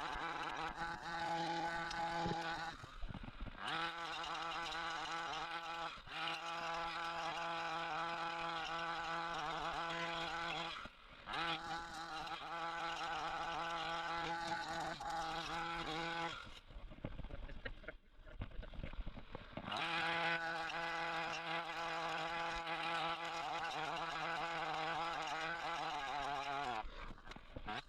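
Getell gasoline chainsaw running at high revs with a steady buzz. The revs drop briefly about three and eleven seconds in, fall to a low rumble for a few seconds past the middle, and slide down in pitch near the end. The owner says the saw is misbehaving and no longer cuts the way it used to.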